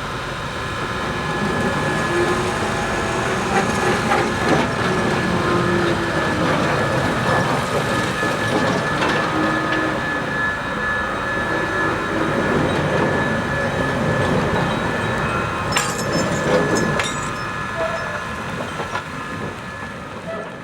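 A train of railway dump cars behind a JS steam locomotive rolling along the track, with continuous rumbling, steady high squealing tones, and knocks and clanks from the wheels and couplings.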